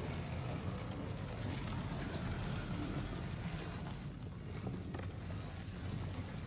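A steady low rumble with a hiss above it: sound effects from a video clip played over the church's sound system.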